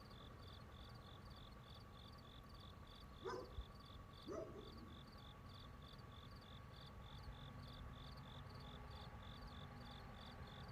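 Cricket chirping faintly and evenly, about three high chirps a second, over a steady lower drone. Two short, louder calls break in about three and four seconds in.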